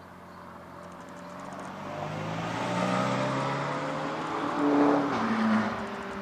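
Ferrari mid-engined V8 sports car accelerating toward and past, its engine note growing louder. It is loudest about five seconds in, then drops in pitch and fades as it goes by.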